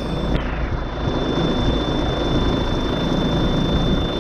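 Steady engine drone and road noise heard inside the cab of a long-haul truck on the move, with a thin steady high whine over it.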